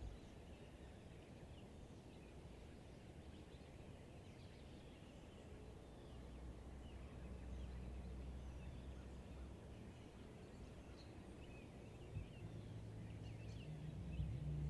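Faint outdoor ambience: scattered faint bird chirps over a low rumble that swells about six seconds in and again near the end.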